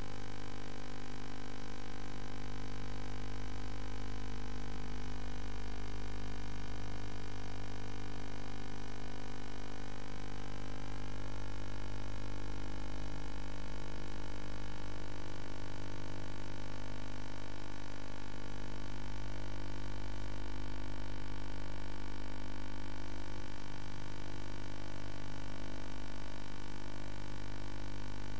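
A steady drone of many held tones from low to high, unchanging in loudness, with a few of the higher tones sliding up a little about ten seconds in.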